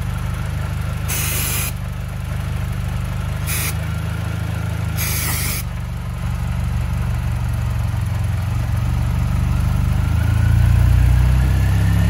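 Supercharged four-cylinder engine of a 2006 Mini Cooper S JCW idling, with three short hisses of an aerosol spray. Near the end the idle rises as the flammable spray is drawn in through a vacuum leak around the brake booster, the sign of the leak behind its manifold-pressure fault codes.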